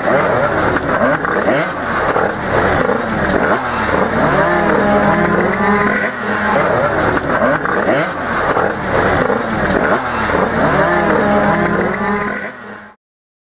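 Several tuned two-stroke racing scooters and minibikes revving at once, many engine notes rising and falling over one another. The sound cuts off suddenly near the end.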